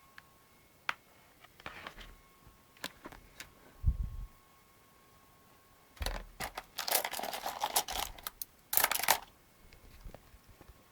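Hands working on an old laptop: scattered clicks, a dull thump about four seconds in, then a few seconds of dense rustling and scraping of plastic parts being handled.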